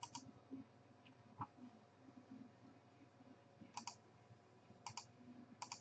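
Computer mouse button clicking in quick double clicks, four times: once at the start and three times in the last two seconds, as a randomizer is run. Faint room noise in between.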